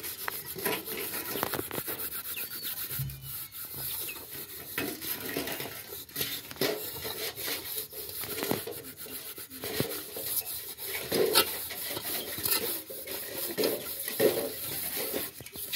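Metal cooking pot (sufuria) being scrubbed by hand with soil as the scouring agent: continuous, irregular gritty rubbing and scraping strokes against the metal.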